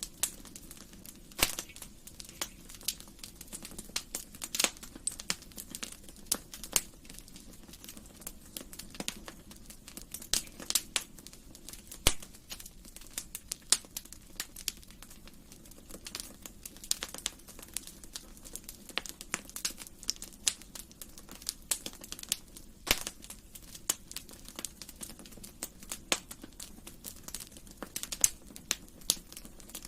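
Wood fire burning in a fireplace: irregular crackles and sharp pops from the burning logs over a soft low hiss, with an occasional louder snap.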